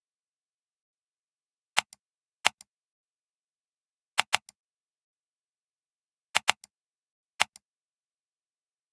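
Computer mouse button clicks over dead silence. There are single clicks about two seconds in, again half a second later and near the end, and quick double clicks about four and six seconds in. Each press is followed by a softer release click.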